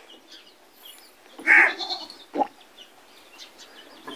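Beetal goat giving a short, harsh call about a second and a half in, followed by a brief second sound.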